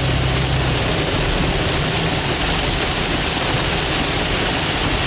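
Heavy rain and wet-road tyre noise heard from a car driving at highway speed: a loud, steady hiss. A low engine hum is heard in about the first second, then sinks under the hiss.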